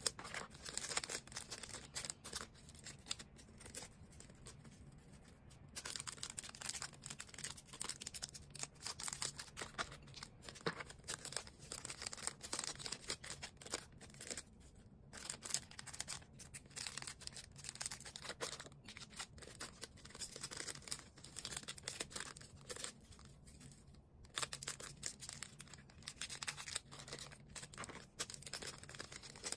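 Hands packing orders: irregular rustling, crinkling and tearing of packaging materials, with scattered sharp clicks and handling noises, over a faint low hum.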